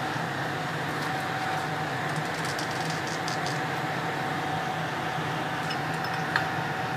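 Steady mechanical hum with a constant thin whine, like a running appliance or fan, with a few faint light ticks and one small tick near the end.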